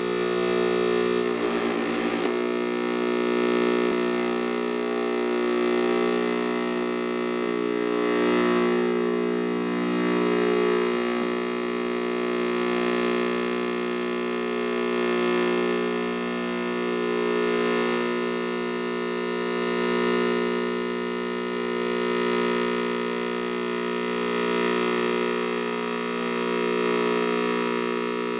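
Glitchy electronic drone from hacked cathode ray tube units, two of them bridged through the player's body: many steady buzzing tones layered together, swelling and fading about every two seconds. About two seconds in there is a brief rippling stutter.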